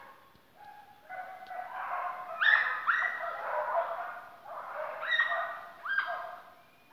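Hunting hounds, an American foxhound and veadeiro dogs, baying in long overlapping calls that each start with a sharp upward swoop, as they give voice on a deer they have put up.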